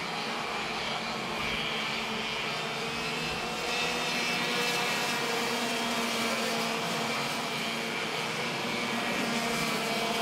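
Two-stroke racing kart engines whining on track, their pitch rising and falling as they accelerate and ease off.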